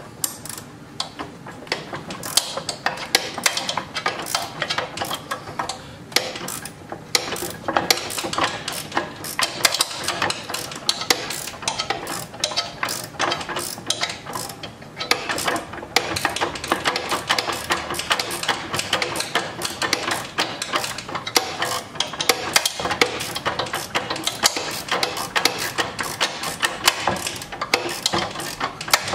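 Hand wrench working a bearing bolt loose on the steel frame of a snowblower's track drive: a steady run of rapid metallic clicks and clinks, with brief lulls about six and fifteen seconds in.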